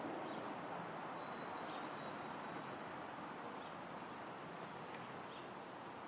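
Steady outdoor background rumble with faint, distant bird chirps and a few soft, high clicks scattered through it.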